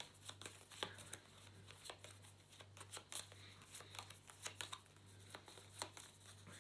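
Faint, scattered clicks and snaps of game cards being handled and laid down, over a steady low hum.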